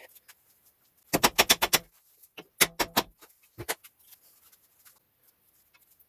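Metallic clicks from hand tools working on a car's outer track rod end as it is fitted: a quick run of about six clicks a second in, a shorter cluster in the middle, then a single click.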